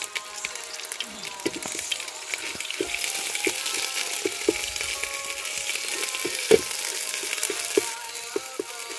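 Spice paste frying in hot oil in a metal pot, sizzling, louder from about three seconds in until near the end. A bamboo stick knocks and scrapes against the pot as the paste is stirred.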